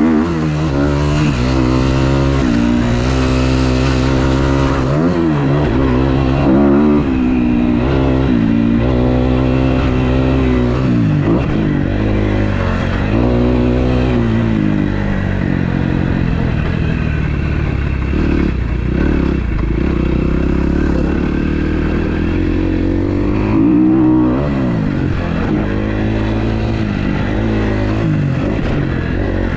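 2012 Kawasaki KX250F's single-cylinder four-stroke engine, freshly rebuilt, revving up and dropping back again and again as the bike is ridden hard around a dirt track.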